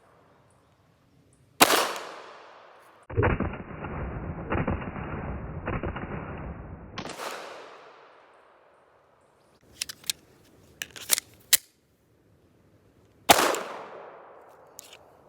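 Glock 19 9mm pistol firing single shots, each a sharp crack with an echoing tail, about one and a half seconds in, about seven seconds in and near the end. In between comes a stretch of dense, muffled noise lasting about four seconds, then a few light clicks.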